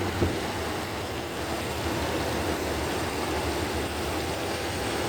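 Steady road noise of a car driving, with tyres and engine running low and even, and a brief knock just after the start.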